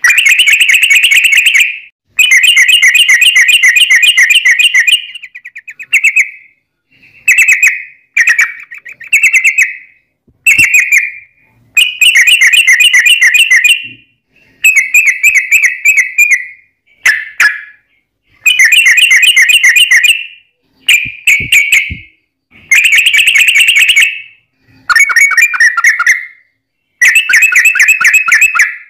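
Yellow-vented bulbul (trucuk) song: loud bursts of rapid chattering notes, each about one to three seconds long, repeated over and over with short gaps between them.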